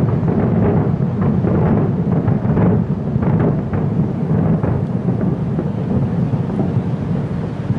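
Fireworks bursting in rapid, overlapping succession: a continuous rumble of booms with many sharper bangs, thinning out toward the end.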